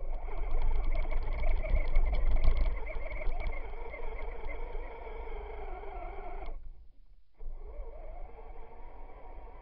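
Onboard sound of a Traxxas Stampede 2WD electric RC truck under throttle: the motor and gear train whine steadily over rumbling noise from the truck driving across snow, with rapid clicking through the first few seconds. The sound cuts off sharply about six and a half seconds in as the throttle is released, then picks up again more quietly a moment later.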